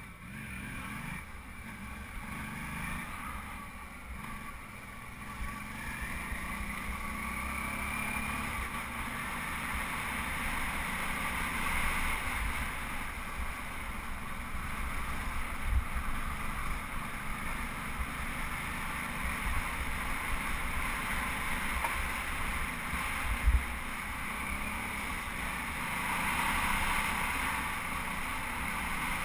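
Suzuki V-Strom 650's V-twin engine running steadily under way on a sandy dirt trail, with wind rushing over the helmet-mounted microphone. Two sharp knocks stand out, about halfway through and again about three-quarters through.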